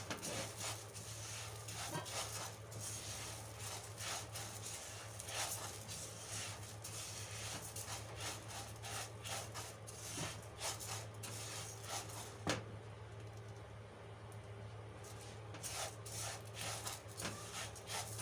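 Orzo (lisan al-asfour) frying in ghee in a pan: irregular crackling and small clicks of the pasta being stirred as it browns, over a steady low hum.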